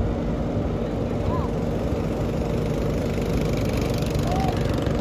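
Caterpillar 312B hydraulic excavator's diesel engine running steadily under load as its bucket presses down on a wooden foundation pile.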